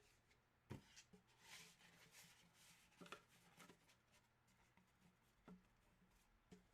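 Near silence with faint rustling and a few light taps and clicks: cards and their holders being handled.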